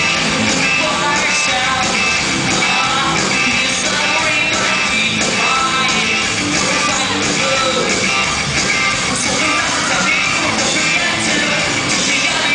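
Live rock band playing loudly: a male lead singer singing over electric guitars and drums.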